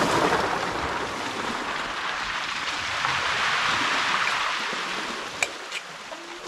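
Sea waves washing in: a steady rush that swells and then fades away, with two light clicks near the end.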